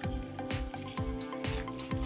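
Background music with a steady drum beat, about four beats a second, over held tones.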